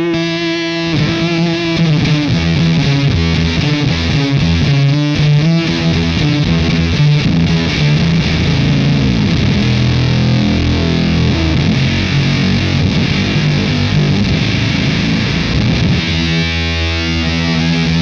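Electric guitar played through a Fender Shields Blender fuzz pedal: octave-up fuzz with some clean signal blended in and the expand footswitch engaged, giving thick, distorted sustained chords. The chords change several times, and a fresh chord is struck near the end.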